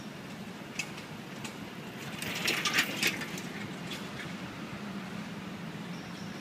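City street ambience: a steady low hum of traffic, with a short cluster of clicks and clatter between two and three seconds in.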